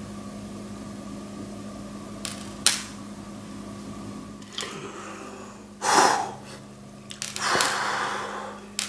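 Fingers working at a tangle of fine metal necklace chains on a wooden table: a sharp click, then a few short rustling, scratching bursts, the loudest about six seconds in, over a steady low hum.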